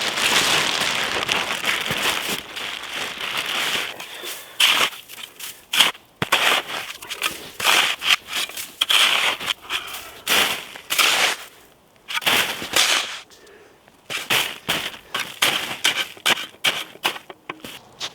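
Branches being snapped and crunched: a dense run of crackling for the first few seconds, then a series of separate sharp snaps and crunches.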